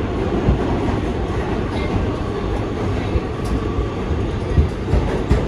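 Kawasaki R211T subway car running at speed, heard from inside the car: a steady rumble of wheels on rail, with a few sharp knocks from the track.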